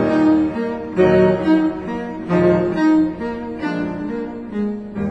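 Background music: a low bowed string melody, cello-like, moving from note to note about every half second to a second.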